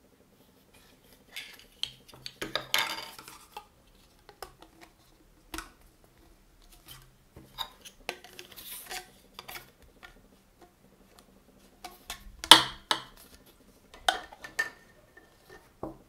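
Plastic parts of a 12 V car vacuum cleaner being handled: the corrugated hose and a plastic nozzle attachment knocking, clicking and scraping as they are fitted together. The sound comes as scattered clicks, with a longer scraping stretch a few seconds in and the loudest knock about twelve seconds in.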